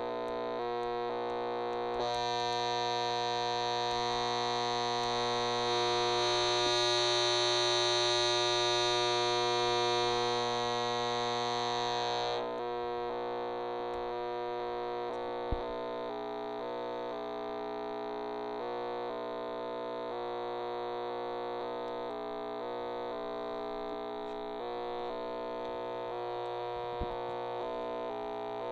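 Circuit-bent radio droning through its speaker: a distorted, synth-like buzz of many stacked tones that shift in small steps as the circuit board is touched. A brighter, hissier stretch runs from about two seconds in to about twelve seconds in, and there is a sharp click about halfway through.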